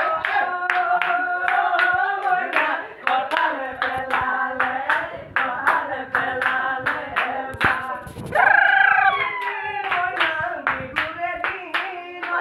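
A group singing a Bihu song while clapping hands in a steady rhythm. About two-thirds of the way through, one loud high cry slides down in pitch over the singing.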